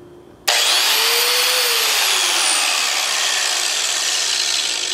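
Electric angle grinder switched on about half a second in and running free with a loud high whine and rushing air, its pitch rising briefly then sagging slowly, dying away near the end.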